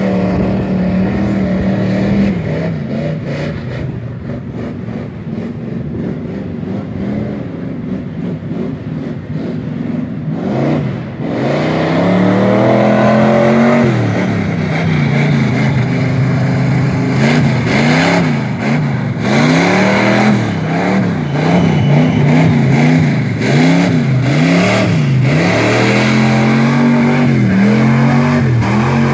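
Ford pickup truck's engine pulling hard through a deep mud pit. The note is fairly steady at first, then about halfway through the revs climb and drop again and again as the driver floors it and the wheels spin in the mud.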